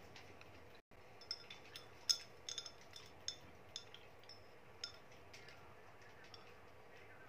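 Light glass clinks as a glass of iced latte is handled, lifted and drunk from: a dozen or so short clinks over about four seconds, the loudest about two seconds in.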